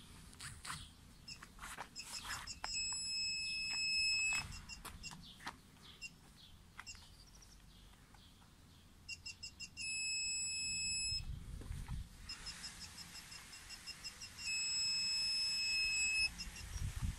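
Aftermarket four-sensor reversing radar buzzer sounding as an obstacle nears a rear bumper sensor: short high beeps that quicken into a steady tone, three times over. The kit has just been installed and is working.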